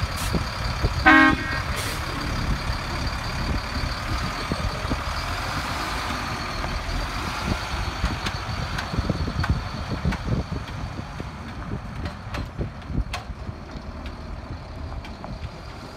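Caterpillar C7 diesel engine of a 2004 Sterling Acterra flusher truck running as the truck pulls away, its rumble fading with distance. About a second in there is one short horn toot.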